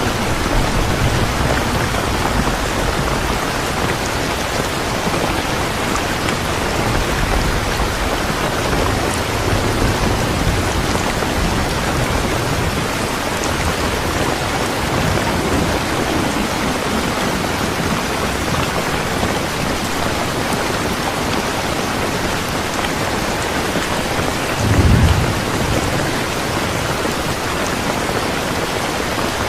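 Steady rain falling, an even hiss, with low rumbles of thunder coming and going and one short, louder rumble near the end.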